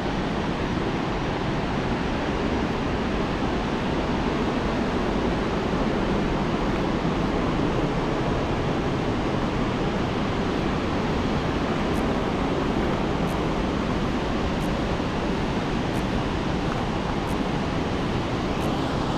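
A powerful waterfall: a steady, unbroken rush of heavily falling water.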